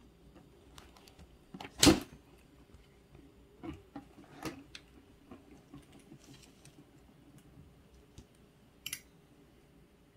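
A cat's paw knocking and tapping at a cardboard canister and the mat beneath it: a few scattered light taps and clicks, with one much louder knock about two seconds in.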